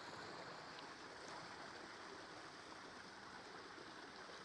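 Faint, steady sound of running water in a small backyard dog pool.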